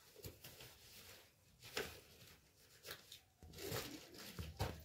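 Faint scattered clicks and rustles over quiet room tone.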